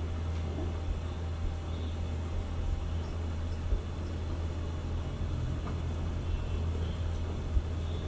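Steady low rumble of a gas burner running on high flame under a large kadhai, with a few faint knocks of a ladle mashing fried potato balls into tomato masala.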